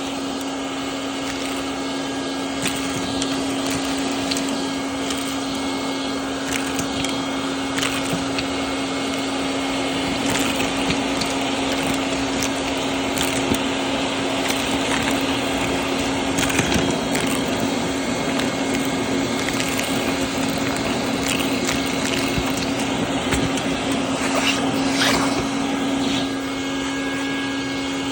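Stinger shop vac running steadily with a constant motor hum and rushing air, while scattered clicks and crackles of debris are sucked up.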